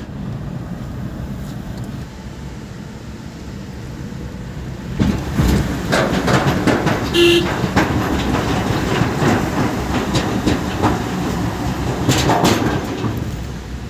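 Vehicle driving, heard from inside the cabin: a steady low rumble of engine and tyres. About five seconds in it turns louder with a rapid rattling clatter as the wheels run over the deck of a steel truss bridge, easing near the end.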